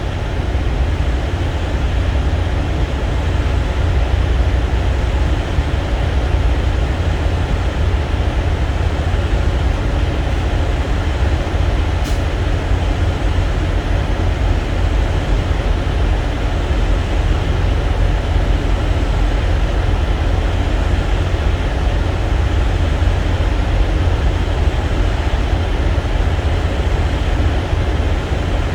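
Diesel engine idling: a steady low rumble with no change in speed.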